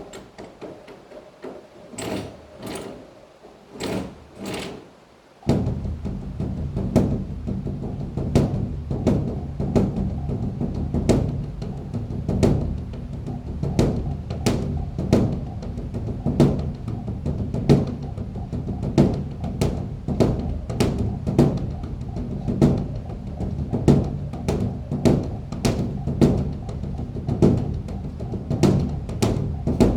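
Large temple drum beaten steadily at about two strokes a second. Light, sharp strokes come first; about five seconds in, the full deep drumming begins and its resonance rings on under every stroke.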